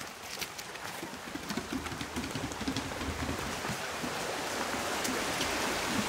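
Rushing water of a small rocky creek, a steady hiss that grows louder, with a few light footsteps and clicks.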